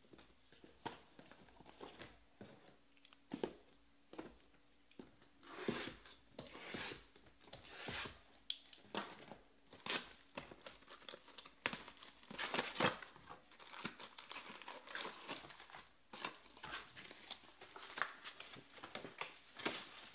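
A 2020 Panini Select Baseball hobby box being torn open by hand, with irregular tearing and crinkling of its wrapping and the foil packs inside as they are pulled out and stacked. The handling is light at first and becomes a dense run of crackles about six seconds in.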